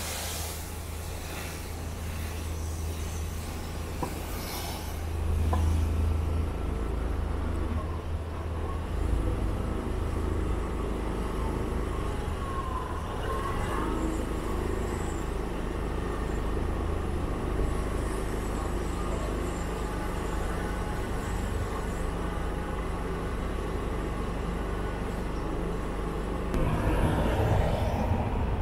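City street ambience with road traffic: a steady low rumble of passing vehicles, louder about five seconds in and again near the end.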